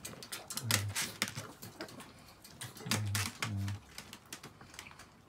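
Irregular clicking and light rattling from wire dog crates being handled, with three short low hums mixed in about one second in and around three seconds in.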